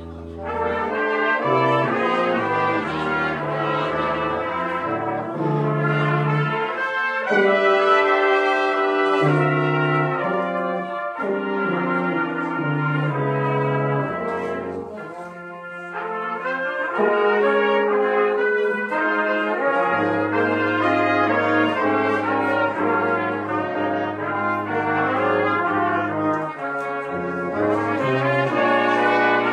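Live brass ensemble of trumpets, trombone, tuba and French horn playing a piece together. The tuba holds long low bass notes under the trumpets' melody, and the music eases off briefly about halfway through.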